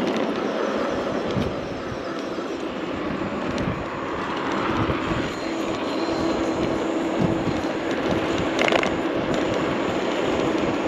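Wind and road noise from a moving 72V, 3500W brushless-motor electric bike, with a steady motor whine coming in about halfway through and a short click near the end.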